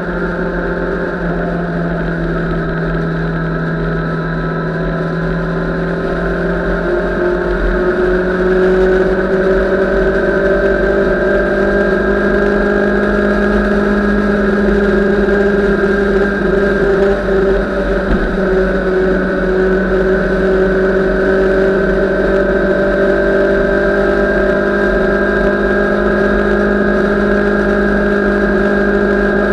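Motorcycle engine running steadily at highway cruising speed. Its note steps up in pitch about six seconds in and then climbs slowly as the bike speeds up.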